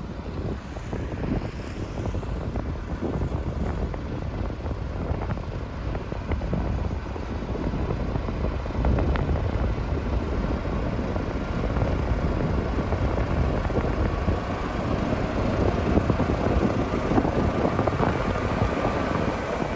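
Heavy diesel construction machinery running, a steady low engine noise that grows somewhat louder about halfway through.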